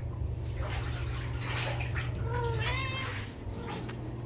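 Domestic longhair cat giving one drawn-out meow about two seconds in, its pitch rising and then falling.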